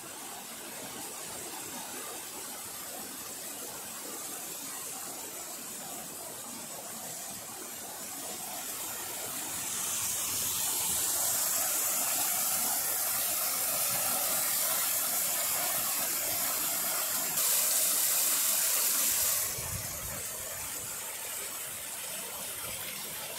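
Mountain stream cascading over rocks in small waterfalls: a steady rush of water that grows louder about ten seconds in and falls back a few seconds before the end.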